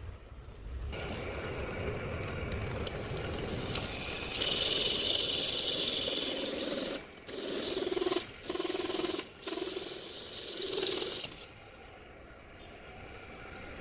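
Pillar drill boring through a steel flat bar with an HSS hole cutter: a steady grinding cut starts about a second in and is broken by three short gaps near the middle. It drops to a much quieter run for the last couple of seconds.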